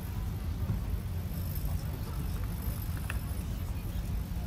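Steady low outdoor rumble of city street ambience, with a faint click about three seconds in.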